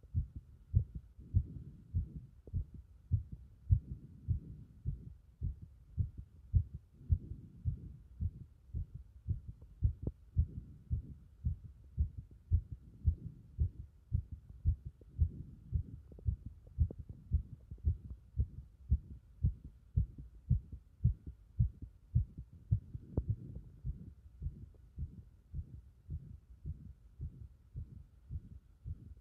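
Human heartbeat heard through the chest wall: a steady run of low lub-dub thuds. A faint steady hum sits beneath it.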